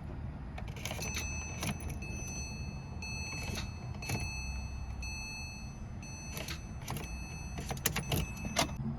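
Porsche 911 (997) ignition clicking again and again as the key is turned, without the engine cranking: a no-start. A steady high-pitched tone sounds under the clicks for most of the time.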